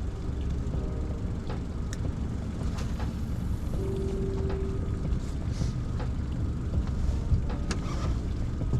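Steady low rumble aboard a small fishing boat, with a few light clicks and a brief hum about four seconds in.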